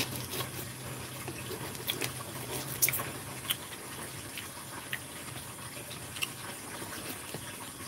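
A yellow utility knife cuts the packing tape along the edge of a shipping box, giving faint scratching and scattered small clicks over a low hum.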